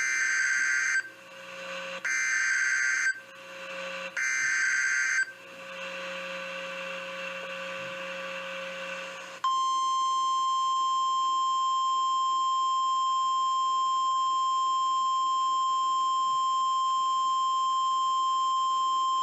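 NOAA Weather Radio emergency alert for a severe thunderstorm warning. It opens with three one-second screeching bursts of SAME digital header data, then a few seconds of faint radio hum. About nine seconds in, the steady 1050 Hz warning alarm tone starts and holds for about ten seconds.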